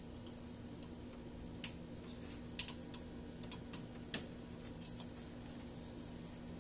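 Three sharp plastic clicks and lighter handling ticks as wire-harness connectors are pushed onto the headers of a CRT TV's circuit board, over a faint steady hum.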